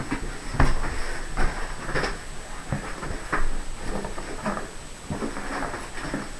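Long cardboard shipping box being handled and worked open: irregular knocks, taps and scrapes of cardboard.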